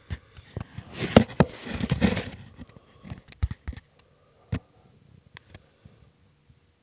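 Handling noise as a phone is moved around inside a reptile enclosure, rubbing and knocking against the decor: a burst of rustling with sharp knocks over the first two seconds or so, then scattered light clicks that thin out.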